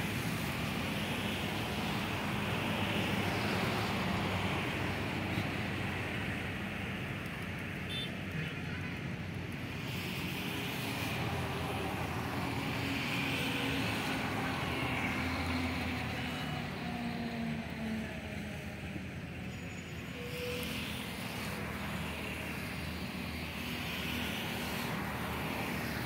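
Steady low rumbling background noise, with a few faint sliding tones in the middle.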